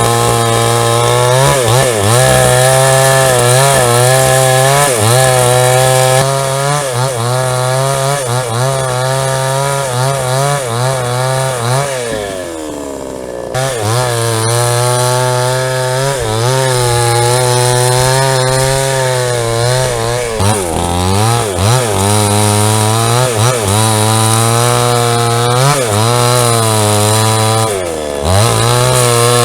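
A JCK two-stroke chainsaw with a 22-inch bar rips lengthwise through a log to cut planks. The engine runs under load with its pitch wavering as it bogs in the cut. About twelve seconds in it drops back to a low idle for a second or so, then revs up again, and it dips briefly near the end.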